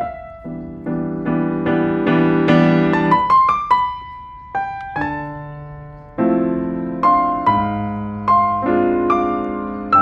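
Background music: a slow solo piano piece, notes and chords struck and left to ring, thinning to a single held note for a moment about four seconds in.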